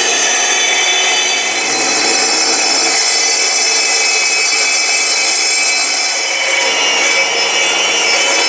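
Angle grinder working sheet steel, with a steady, loud grinding.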